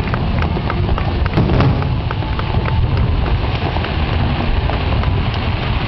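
Fireworks finale: a continuous low rumble of overlapping booms with many sharp crackles scattered through it.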